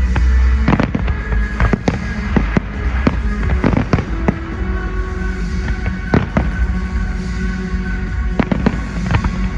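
Fireworks going off in an irregular string of sharp bangs, a few a second, over music that accompanies the display.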